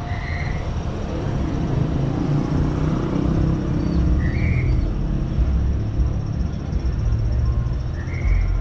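A car driving along a road, with a steady low rumble of engine and tyres. Three short high chirps come about four seconds apart over the rumble.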